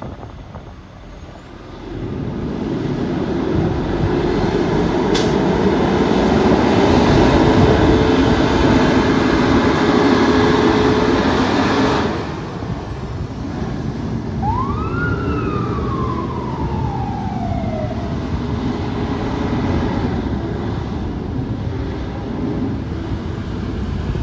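Kenworth fire tender's diesel engine pulling hard as the truck moves off and passes close by, with a sharp knock about five seconds in. Later a siren gives one quick rising then slowly falling wail over the engine.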